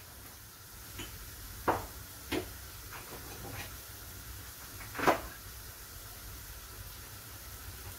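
A few short, sharp knocks and clatters of kitchen items being handled, the loudest about five seconds in, over a steady low hum.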